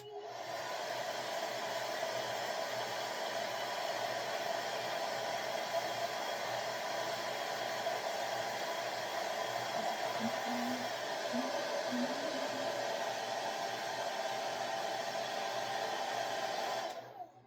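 Hair blow dryer running steadily with a hum, drying the glue on a freshly placed weave track, then switching off near the end.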